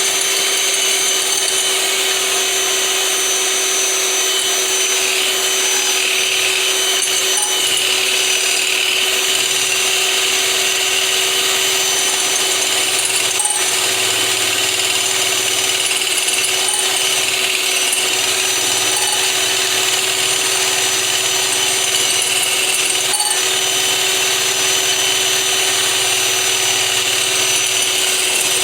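An electric blender motor running steadily at one speed, whipping egg, vinegar and oil into a mayonnaise-style emulsion.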